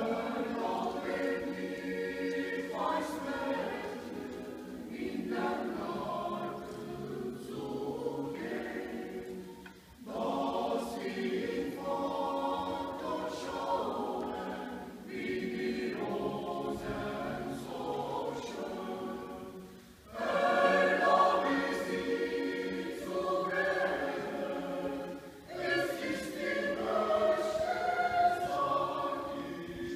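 Mixed choir of women's and men's voices singing a cappella in several parts, coming in together at once and going on in long phrases with brief breaks about ten and twenty seconds in.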